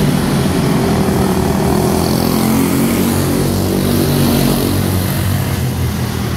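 A pack of quarter midget race cars, each with a Briggs & Stratton Animal single-cylinder four-stroke engine, running together at racing speed. Several engine notes overlap and rise and fall in pitch as the cars go through the turns.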